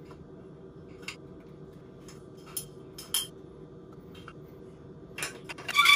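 Scattered sharp clicks and light clacks from a manual caulking gun being squeezed and handled: a few spread out, then a quick cluster near the end. A faint steady hum runs underneath.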